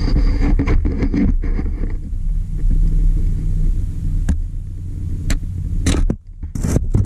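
Low rumble of handling and wind noise on a handheld camera's microphone, with scattered knocks and scrapes as the camera is moved close over the clay. The rumble drops out briefly about six seconds in.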